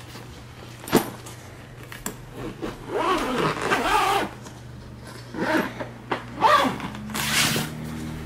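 Soft-sided fabric suitcase being handled, its fabric and fittings rustling and scraping in several short bursts, with a sharp knock about a second in.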